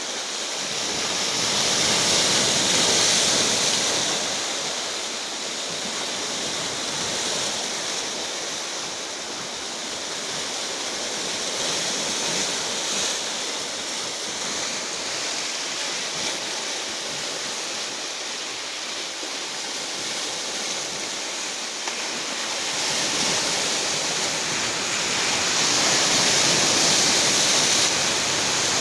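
Rough sea surf: waves breaking and rushing on the shore in a steady roar of noise, swelling louder twice, near the start and near the end.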